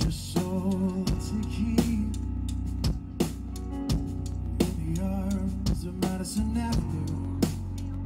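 Live rock band playing: electric guitar and drum kit over a heavy bass, with sharp drum and cymbal hits throughout and a wavering lead line on top.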